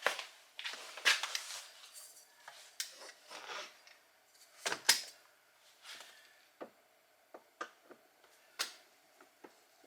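Irregular clicks and short scrapes of a Phillips screwdriver working at the screw behind a small plastic cover in a car's door handle recess, with a sharper knock just before the halfway point.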